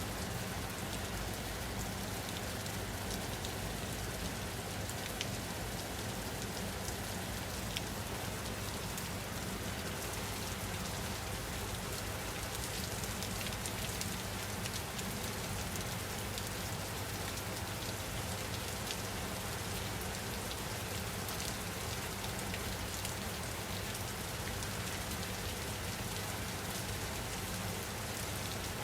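Steady rain falling on a surface, an even hiss of rain with many small individual drop ticks.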